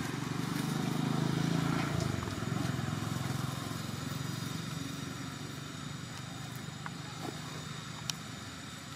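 Low engine rumble, loudest in the first three seconds or so and then easing to a steady background hum. A single sharp click comes near the end.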